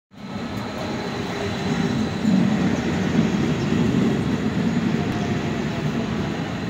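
Rhaetian Railway Allegra electric multiple unit hauling Bernina Express coaches, rolling past at close range: a steady rumble of wheels on the rails.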